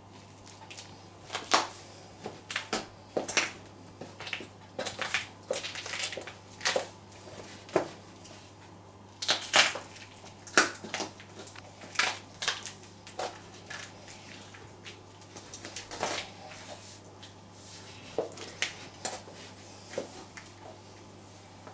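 Stiletto heels treading and grinding on chopped carrots, banana and kiwi on a tiled floor: irregular crunches, squelches and sharp heel clicks, loudest about nine to ten seconds in.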